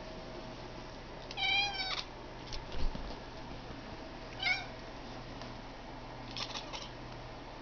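A domestic cat making a strange clicking, chattering vocalisation: a wavering meow-like call about a second in, a few sharp clicks, a second short call in the middle, and a quick run of clicks near the end.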